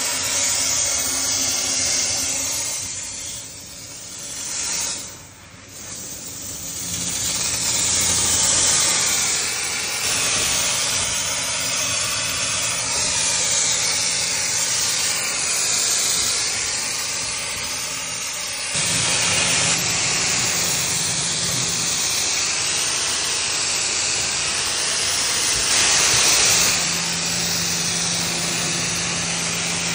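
Pressure washer jet spraying water at high pressure inside a metal kitchen exhaust duct: a steady hiss, with a faint low hum underneath at times. The spray briefly drops away about five seconds in and then comes back.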